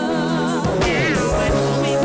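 Live reggae band playing, with electric guitar, drum kit and keyboards under a held, wavering lead melody line that slides down in pitch about halfway through.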